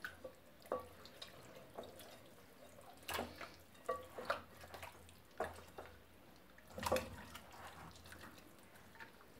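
Hands working a wet herb-and-spice marinade into a raw whole chicken, pushing it under the skin: faint, scattered wet squelches and soft smacks, several in a few seconds.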